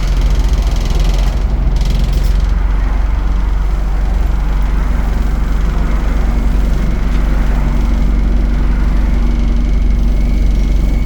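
Diesel engine of an ADL Enviro 200 bus running steadily, with a deep constant hum. A further low tone joins about halfway through and a faint high whine comes in near the end.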